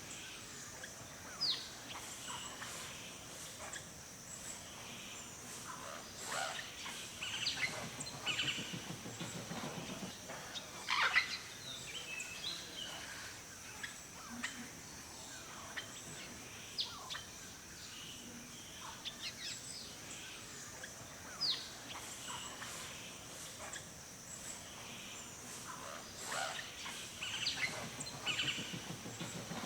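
Several forest songbirds calling and singing: scattered short chirps and quick falling whistles, some in brief runs, over a steady high hiss.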